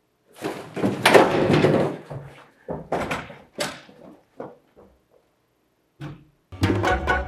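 A person scrambling up and running out of the room in a clatter of movement and footsteps, with a door swung open. Near the end the door shuts with a heavy thud.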